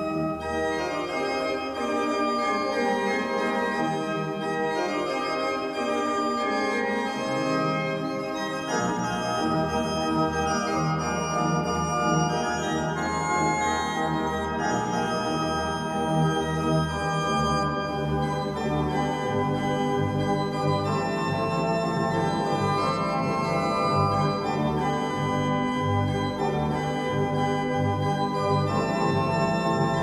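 Pipe organ playing full sustained chords. A bass line steps downward over the first several seconds, and deep bass notes come in about two-thirds of the way through.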